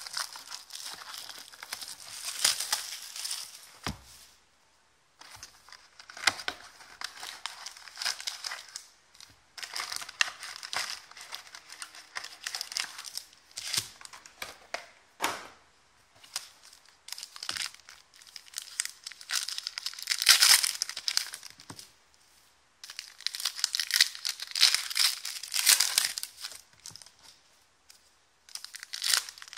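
Plastic shrink-wrap and foil card packs of an Excalibur basketball card box crinkling and tearing as the box is unwrapped and its packs handled and stacked. The crinkling comes in bursts with short pauses, with an occasional sharp click.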